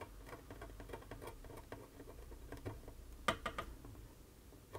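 Faint small ticks and scratches of tweezers scraping and tapping across the solder pads of a circuit board, with a slightly sharper cluster of clicks a little over three seconds in.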